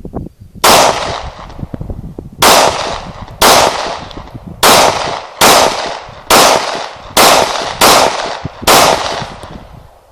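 Glock 17 9mm pistol firing nine shots at an uneven pace of roughly one a second, each shot loud and sharp with a long echoing tail.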